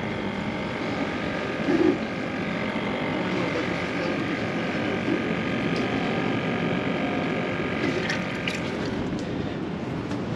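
Steady engine drone with several even, high whining tones over it, easing off near the end.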